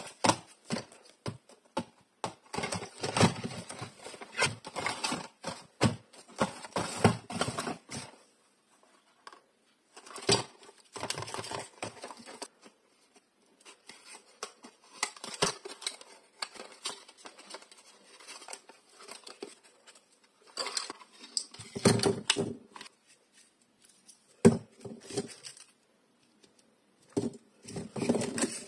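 Paper cone claws on the fingertips tapping and clicking on small cardboard blind boxes, with crinkling and tearing as the boxes and wrappers are opened. A dense run of quick taps comes first, then scattered clusters of clicks with short pauses and a few louder knocks.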